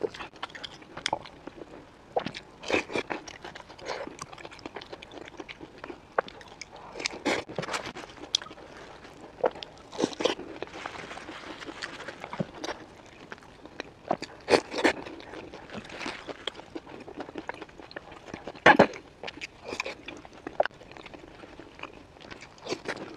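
Close-miked eating sounds: biting, crunching and chewing a sesame-crusted pumpkin pastry, with wet mouth noises and irregular crunches, the loudest about 19 seconds in.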